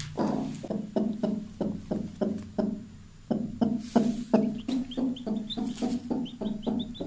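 Mother hen clucking steadily in short low calls, about three a second, the brooding hen's call to her newly hatched chick. From about halfway, high short chick peeps join in.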